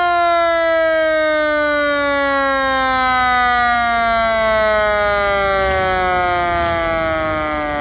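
Mechanical siren on a 1937 Ford fire truck winding down: one long wail, steadily falling in pitch, with a low engine rumble underneath that grows near the end.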